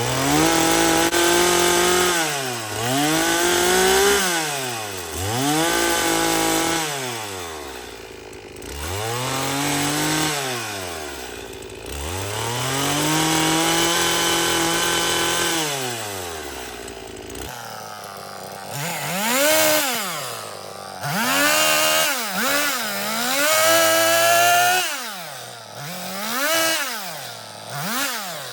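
Chainsaw running while cutting a bowl blank from a log, its engine pitch rising and falling over and over as it is throttled up and down through the cut.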